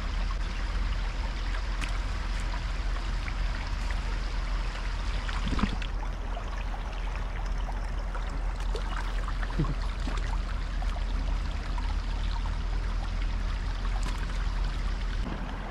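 Shallow river water flowing steadily, with a low wind rumble on the microphone.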